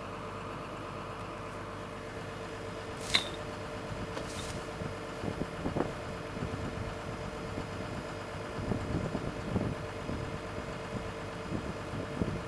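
Excavator engine running steadily, heard through a camera mounted on the boom, with a sharp click about three seconds in, a fainter one a second later, and low irregular knocks after that.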